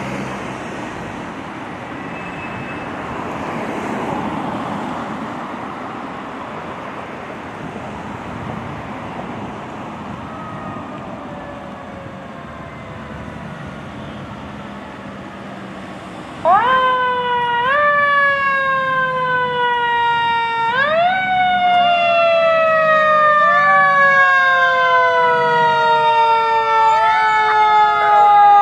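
Road traffic passing on a city street, then a bit past halfway a fire apparatus siren starts suddenly and loudly. It rises quickly and falls slowly, over and over.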